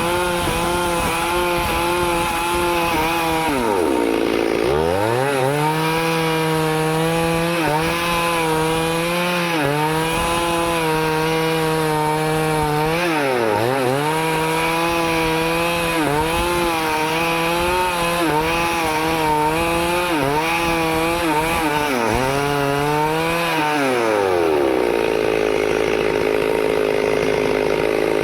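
Two-stroke Stihl chainsaw running at high revs, cutting wood, its pitch wavering under load. The revs dip briefly twice, fall to a low idle near the end, then rise sharply again.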